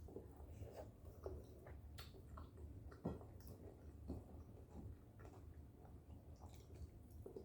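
Near silence with faint eating sounds: soft chewing and scattered small clicks, one a little louder about three seconds in, over a steady low hum.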